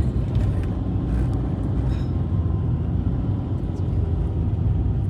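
Waterfall's steady, deep rushing noise, heaviest in the low range.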